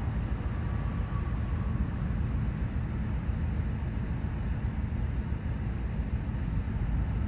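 Union Pacific GE diesel-electric locomotives running as they roll slowly past: a steady low engine rumble.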